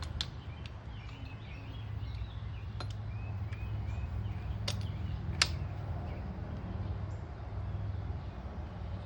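A few sharp clicks and knocks of tools being handled over a steady low hum, with faint bird chirps.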